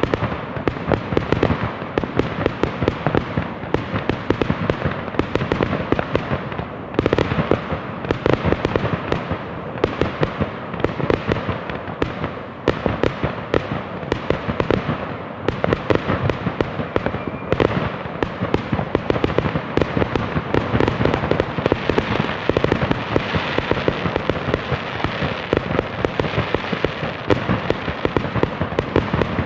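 Fireworks going off in a dense, continuous barrage of many sharp pops and bangs a second.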